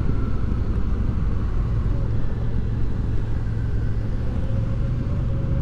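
Motorcycle engine running steadily with road noise while riding: a constant low drone that does not rise or fall.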